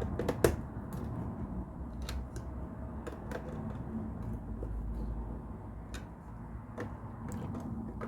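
Plastic LEGO pieces clicking and tapping irregularly as they are handled and pressed together, over a low background rumble.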